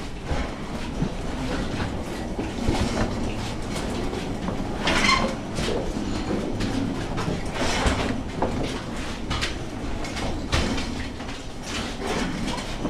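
Steel-wheeled mine car rolling along the underground rail track, its wheels clattering and clanking over the rails with a steady rumble. Two louder metallic clanks come about five and eight seconds in.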